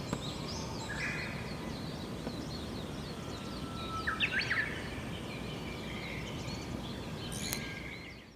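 Outdoor ambience: several birds chirping and calling, with a few rising calls about four seconds in, over a steady rushing background noise.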